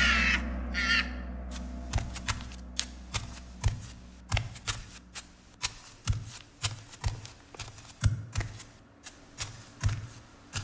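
A short high call-like cry in the first second, then footsteps on a hard floor: a low thud with a sharp click at each step, about two to three a second.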